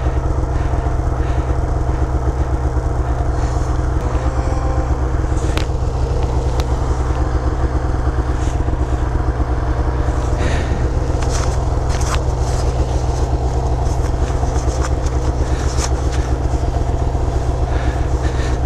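Snowmobile engine running steadily at idle close to the microphone, with no revving and a few short clicks.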